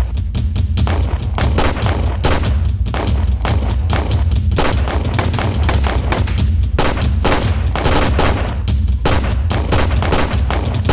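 Handgun shootout: many pistol shots in quick succession, several a second and overlapping, with no pause.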